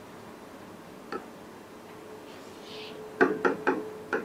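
Marker tapping and knocking against the writing board as a word is written by hand: one faint knock about a second in, then four quick knocks near the end.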